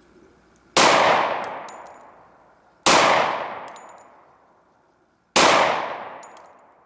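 Three shots from a Glock 20 10mm pistol, about two to two and a half seconds apart. Each is a sharp, loud report that rings and echoes away over about two seconds.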